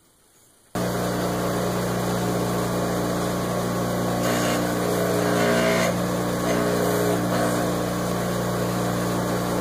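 Bench grinder running with a steady motor hum as the wheel grinds down a polymer Magpul detachable bottom metal, removing the lips that keep it from seating in the stock. The sound starts suddenly about a second in, and the rasp of the part against the wheel grows louder for a couple of seconds about halfway through.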